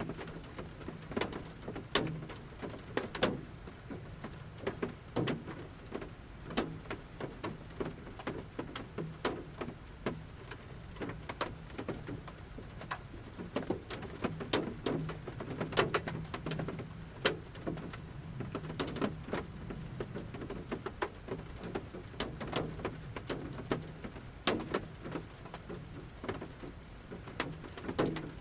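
Large raindrops falling from the forest canopy and pattering at irregular intervals on the metal roof of a camper van, heard from inside the van, with a faint low hum underneath.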